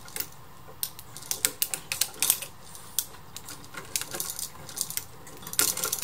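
Screwdriver working the terminal screw of an old three-way light switch to free the common wire: scattered small metallic clicks and ticks of tool, screw and wire against the switch, with a quick cluster near the end.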